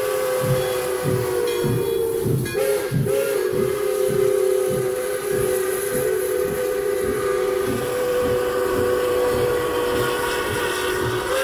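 Pere Marquette 1225, a 2-8-4 Berkshire steam locomotive, sounding its chime whistle in one long, steady blast that wavers briefly about three seconds in. Underneath it the exhaust chuffs at about two to three beats a second as the engine works.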